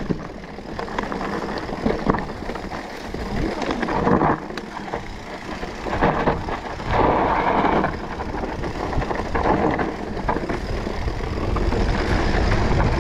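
Wind buffeting the camera microphone over the rumble and rattle of a mountain bike rolling downhill on a rough dirt trail, with louder gusts now and then.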